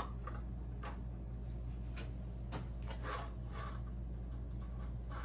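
Faint clicks and rubbing of a bicycle brake lever's clamp being handled and slid onto the handlebar, a few light knocks spread through, over a steady low hum.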